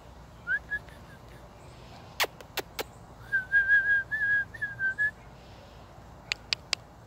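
A person whistling a quick run of short, slightly wavering notes at one pitch to call a puppy. Three sharp clicks or smacks come before the run and three more near the end.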